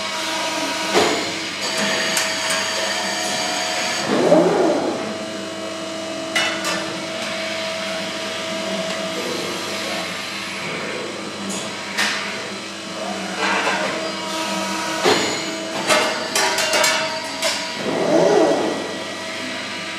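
Deratech Technica Plus 250-ton CNC hydraulic press brake running with a steady hum while it cycles through bends. Scattered clicks and knocks come from the steel sheet being handled and bent, with two louder clunking surges about four seconds in and near the end.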